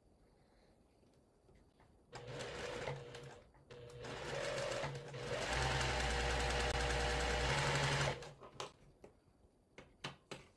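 Sewing machine stitching a quilt-block seam in two runs: a short burst about two seconds in, then after a brief stop a longer steady run of about four seconds that ends sharply, followed by a few faint handling clicks.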